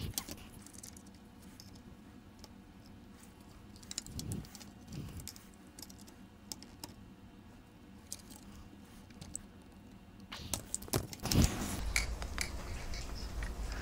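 Light clicks and clinks of hand tools and small metal parts being handled on a golf cart battery charger's wiring, scattered and faint at first, then denser, louder clattering with a few bumps from about ten seconds in.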